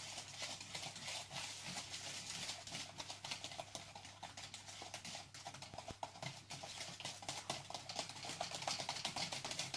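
Hand whisk beating cake batter in a bowl, its wires clicking rapidly and continuously against the bowl's sides.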